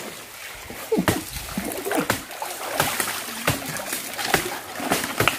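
Water splashing and sloshing, broken by about eight sharp knocks at irregular intervals.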